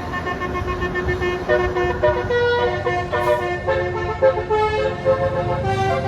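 Bus telolet horn, a Basuri musical air horn, playing a quick melody of stepped notes over a low engine and road rumble.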